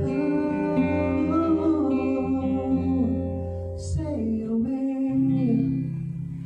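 Acoustic guitar with a voice singing a melody line that no words were transcribed for, the music fading out near the end.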